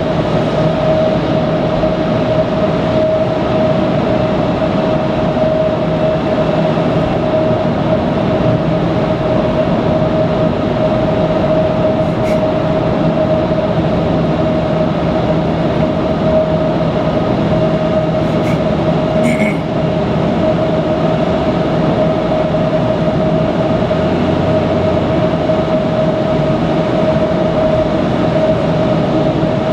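Car cruising on an expressway: steady tyre and road noise with a constant mid-pitched hum, and a couple of faint clicks partway through.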